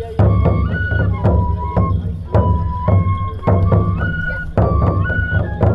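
Japanese festival hayashi music: a high flute playing a short repeating melody that steps between a few notes, over regular drum strokes.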